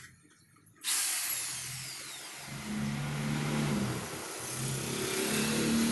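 Corded electric drill starting up suddenly about a second in and running, boring into the wooden frame of a console table, its motor note shifting as the bit bites into the wood.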